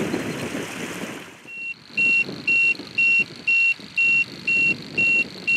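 A boat's echo sounder sounding its shallow-water alarm: a high, even beep about twice a second, starting about a second and a half in, warning that the water under the boat is shallow. Before it starts, a rushing noise fades out.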